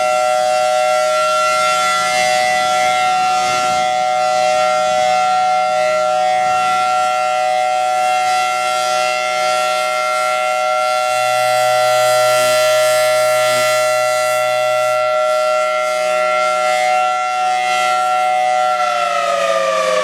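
Federal Signal Thunderbolt 1000T tornado siren sounding its steady alert signal: a loud, held two-tone wail at a constant pitch. Near the end the pitch begins to fall as the siren starts to wind down.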